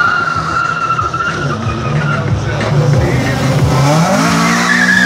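Car launching hard at a drag strip, its tyres squealing for the first second or so over the revving engine. About four seconds in, an engine revs up sharply.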